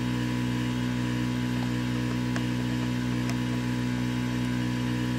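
Steady electrical hum from an electric soldering tool held on the terminal of an alternator brush holder while it melts the old brush's solder joint.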